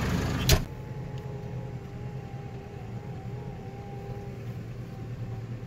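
Tractor engine running, with a sharp click about half a second in, after which the engine sound is quieter and steady.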